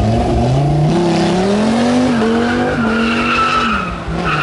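Dodge Viper SRT-10's V10 of over 8 litres launching hard from the line and accelerating away, its pitch climbing with a step at a gear change, then falling as it lifts off near the end. A high squeal rises over it about three seconds in.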